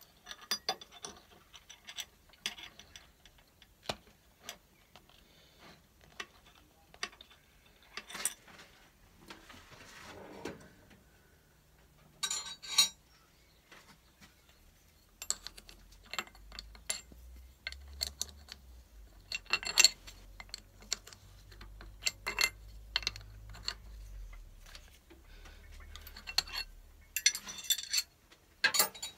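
Scattered metallic clinks, taps and knocks of tools and parts being handled at a lathe chuck while a workpiece is set up. A faint low hum joins in for the second half.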